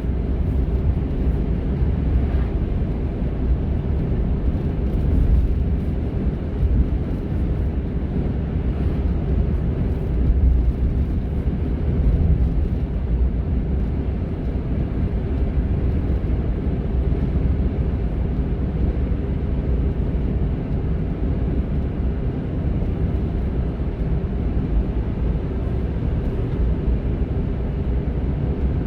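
Honda N-ONE kei car on the move: a steady low engine and road rumble.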